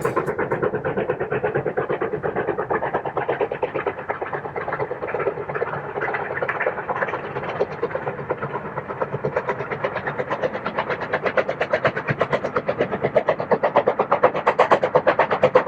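Steam locomotive working hard, its exhaust beating in a rapid, even rhythm that grows louder over the last few seconds as it comes closer.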